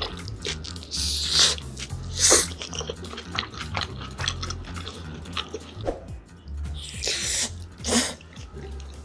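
Close-miked eating sounds: a run of crisp clicks and crunches with four louder noisy bursts, over quiet background music.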